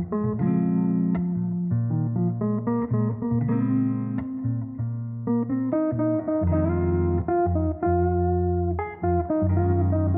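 Background music: plucked guitar melody over a bass line, notes changing at an easy pace.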